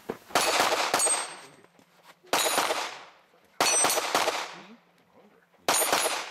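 Pistol-caliber carbine shots at steel targets in four groups a second or two apart, each shot followed by the ring of struck steel.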